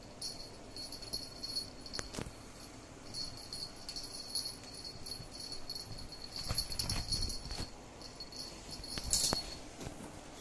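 Small collar bells jingling on and off as two kittens wrestle, with a few thumps from their bodies hitting the bed, the strongest about two-thirds of the way through.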